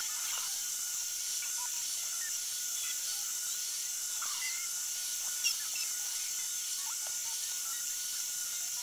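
Quiet outdoor ambience: a steady hiss with a faint steady high tone, broken by a few faint bird chirps and a short click about five and a half seconds in.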